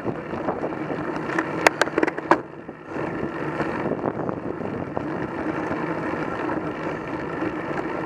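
Wind buffeting the microphone of a camera mounted on a moving road bike, over steady road and bike rattle. A few sharp clicks come between about one and a half and two and a half seconds in.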